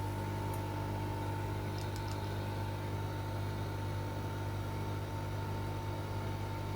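Hot air rework station's air pump running steadily, a low hum with a steady whine, blowing at a flow setting that is still too low.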